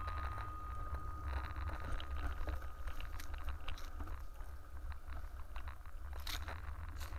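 Bicycle riding along pavement: a steady low wind-and-road rumble with scattered clicks and crunches from the tyres and the rattling bike. The last of a bicycle bell's ring fades out in the first few seconds.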